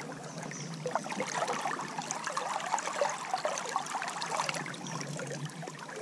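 Flowing river water, a steady rush.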